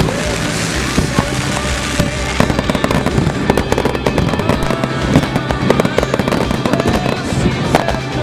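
Fireworks display finale: a dense, unbroken barrage of bangs and crackles, many shells going off close together.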